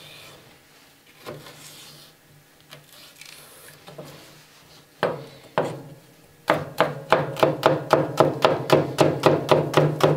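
Chef's knife chopping celery on a plastic cutting board. There are a few separate knocks, then past the middle a fast, even chopping at about five strokes a second as the stalk is diced.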